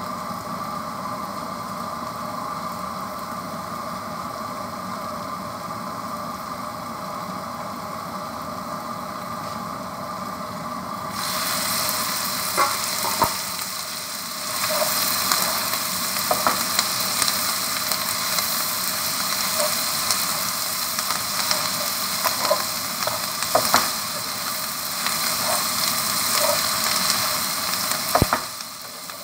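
Shrimp and vegetables frying in a wok: a steady, muffled sizzle under a steel lid, which turns suddenly louder and brighter about eleven seconds in as the lid comes off. A wooden spatula then stirs through the frying mix, with scattered scrapes and knocks against the pan.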